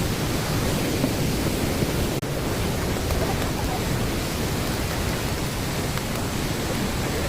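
Waterfall: a steady rush of falling water. It cuts out for an instant about two seconds in.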